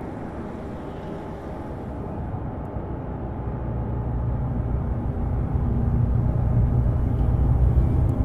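Audi Q4 Sportback e-tron concept, an electric SUV, driving through a road tunnel: a steady low road-and-tyre rumble that grows louder over the last several seconds as the car comes alongside.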